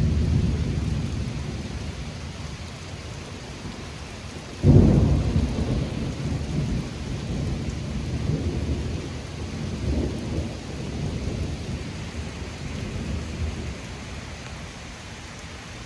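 Thunder over steady rain: a rumble dies away over the first few seconds, then a sudden loud thunderclap about four and a half seconds in rolls on, swells again about ten seconds in, and slowly fades.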